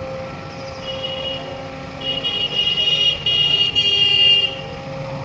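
Diesel engine running steadily under a loud, high-pitched vehicle horn. The horn gives a short toot about a second in, then blares in several long blasts from about two seconds in until near the end.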